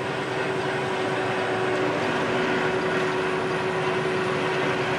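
Steady road and engine noise heard inside a semi-truck's cab while driving at highway speed, with a steady hum running under it.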